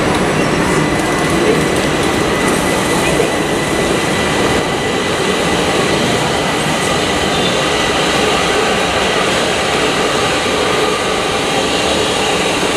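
Class 377 electric multiple unit pulling away from the platform: steady rumble of the train running on the rails, with a constant high tone.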